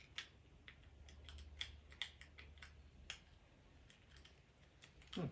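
Faint, irregular light clicks and taps of small parts being handled and worked at by hand, over a low steady hum. A short louder scrape-like sound comes near the end.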